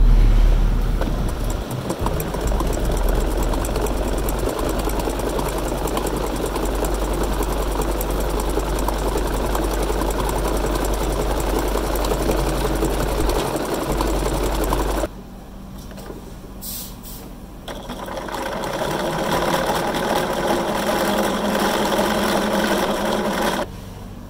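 Bernina sewing machine running steadily, zigzag-stitching coiled cotton clothesline rope together into a bowl base. It stops about 15 seconds in, with a quieter stretch of a few small clicks, then runs again for about six seconds and stops near the end.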